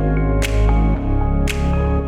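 Electronic background music with heavy bass and sustained synth tones, with a sharp hit on the beat about once a second.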